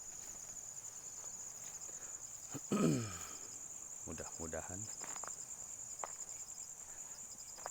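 Insects, crickets by their sound, trilling steadily at a high pitch in rapid pulses. About three seconds in there is a short, loud voice-like sound falling in pitch, then faint voices.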